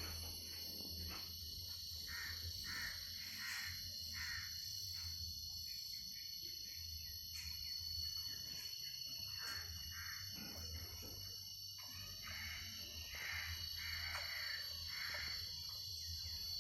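Pigs in a pen giving short, repeated calls, one after another, over a steady high insect drone.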